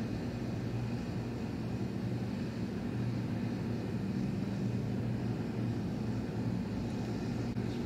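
A steady low mechanical drone with no change in pitch or level.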